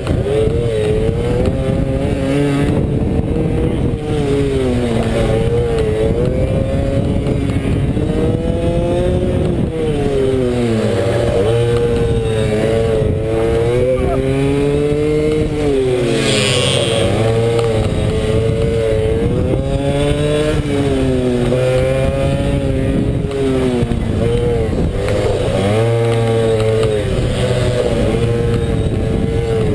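Pit bike's single-cylinder four-stroke engine at racing speed, heard onboard: the engine note drops each time the throttle is closed for a corner and climbs again as the bike accelerates out, over and over.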